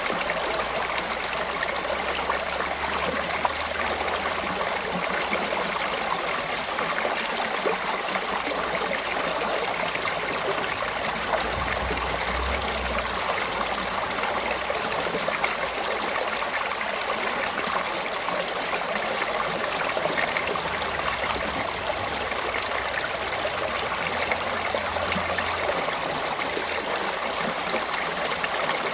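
A stream running steadily, water splashing and trickling over rocks in an even, continuous rush.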